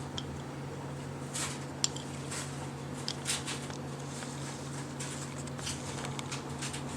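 Steady low hum of an indoor room, with scattered faint ticks and rustles; one sharper tick just under two seconds in.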